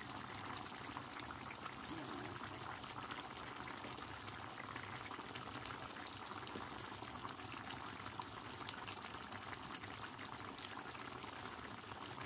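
Fish broth boiling in a wide stainless steel pan: a steady bubbling.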